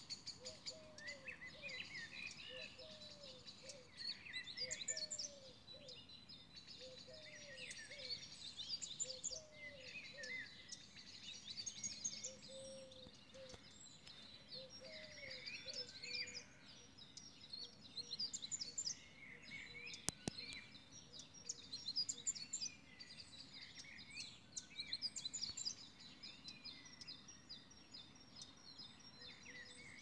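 Faint chorus of small birds chirping and twittering, several at once, with a lower note repeating every second or so. A single sharp click about two-thirds of the way through.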